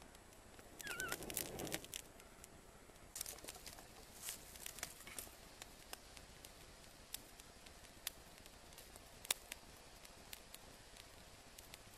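Small campfire of dry twigs and kindling crackling as it catches, with sharp pops scattered irregularly through; a short, louder rush of noise about a second in.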